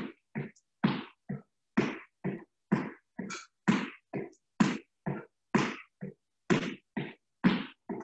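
A person doing jumping jacks: rhythmic puffs of breath and landings, about two a second, alternating stronger and weaker, each cut off sharply.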